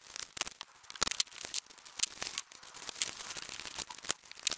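Layers of plastic packing tape and plastic wrap being peeled, torn and cut open with scissors: irregular crackling, tearing and crinkling plastic.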